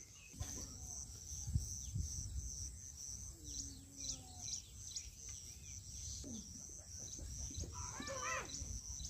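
Rural homestead ambience: a high, even chirping repeating about three times a second over a low wind rumble on the microphone. A few faint calls come through, with a brief higher call about eight seconds in.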